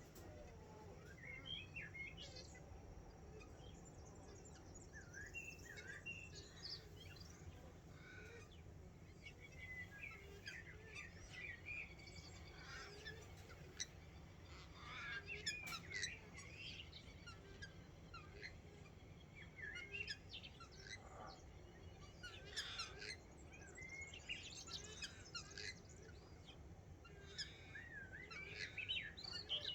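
Dawn chorus of several songbirds: many short chirps and warbling phrases overlapping, over a faint low background rumble.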